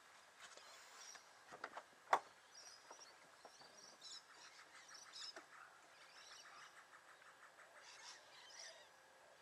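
Faint bird chirps outdoors, with a few small clicks and one sharper click about two seconds in.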